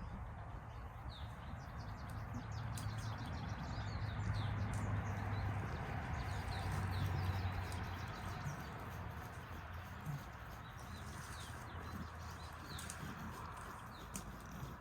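Small birds chirping in quick short notes over a steady low rumble and hiss, with scattered sharp clicks.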